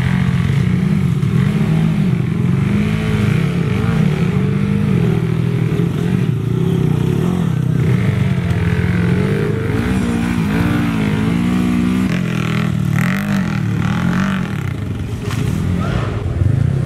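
Dirt bike engines revving on and off the throttle, their pitch rising and falling constantly.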